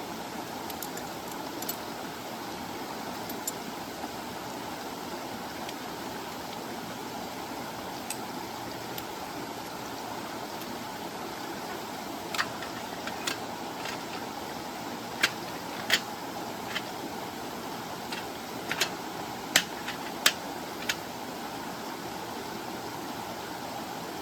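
Stream water flowing steadily. In the second half come a dozen or so sharp, short clicks and taps, some in quick pairs.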